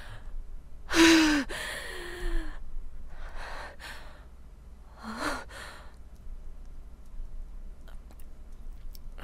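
Acted nervous sighing in a recorded monologue: a loud voiced sigh about a second in that falls in pitch, trailing into a second softer one, then quieter breaths and a short voiced 'ah' around five seconds in. It is the character's embarrassed hesitation before a confession.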